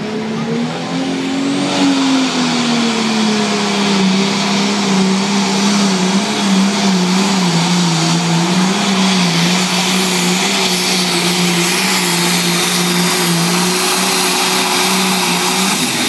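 IH Super Farm class pulling tractor's turbocharged diesel engine running flat out under load as it pulls the sled. It is a loud, steady high-revving drone with a wavering pitch that climbs over the first two seconds, then settles a little lower and holds. The engine note drops away right at the end.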